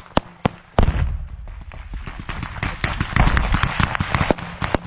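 Small-arms gunfire in a firefight: many sharp, irregular shots cracking throughout, some close and some further off. There is a heavier thump with a low rumble after it about a second in.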